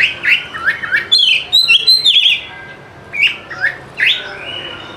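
Oriental magpie-robin (kacer) singing: a fast string of varied whistled notes and slurred chirps, densest about one to two seconds in, then a few shorter phrases.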